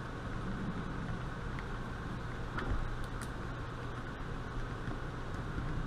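Steady workshop background hum and hiss, with a few faint light clicks from a screwdriver turning a screw into the body of a Carter mechanical fuel pump.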